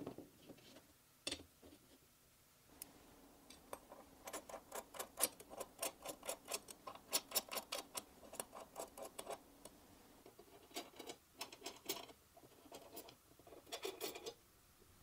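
Small metal clicks and ticks of an L-shaped hex key turning socket-head cap screws into aluminium linear bearing blocks. There are a few separate clicks at first, then a quick run of ticks at about four or five a second from about three seconds in, and more short clusters of clicks near the end.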